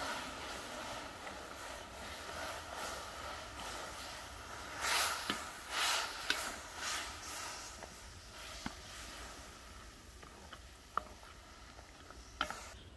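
Wooden spatula stirring rose petals in a hot cast-iron kazan over a wood fire. There is a steady hiss of petals steaming in the pot, louder swishing strokes around the middle, and a few sharp clicks.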